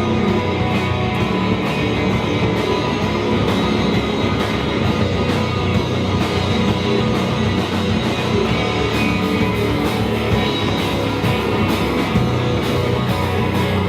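Rock band playing an instrumental passage: guitars over drums with a steady beat.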